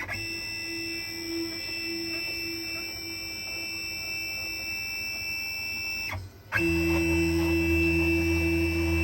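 CNC router's servo motors and drives whining with a steady high-pitched tone as the axes move on ball screws. About six seconds in the whine stops for a moment, then comes back louder with a low hum added.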